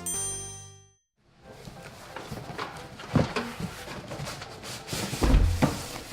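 A music chord fading out, then a cardboard PC-case box being handled: rustling with a few sharp knocks and a heavier thump about five seconds in.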